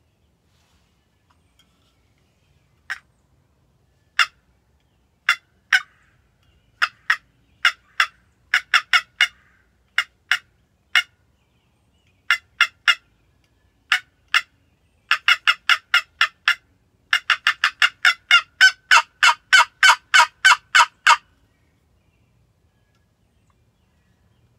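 Wooden box turkey call scraped by hand, giving sharp hen-turkey yelps: single notes and short groups at first, then a fast run of about a dozen yelps, roughly three a second, that stops a few seconds before the end.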